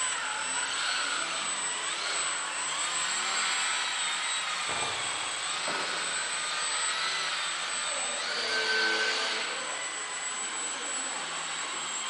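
Small brushless electric motor and propeller of an indoor F3P aerobatic model plane in flight, a whine that rises and falls in pitch with the throttle. It is loudest about eight to nine seconds in.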